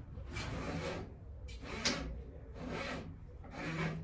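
Electrical cable being pulled by hand through conduit, a rubbing scrape with each pull, four pulls about a second apart.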